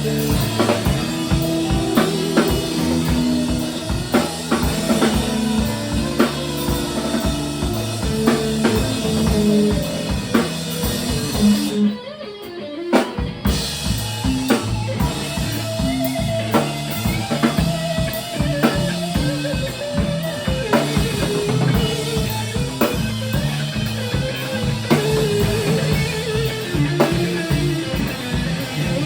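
Live band playing an instrumental stretch of a song on drum kit, electric guitar and bass, with a brief break about twelve seconds in where the drums and cymbals drop out for a second or so before the band comes back in.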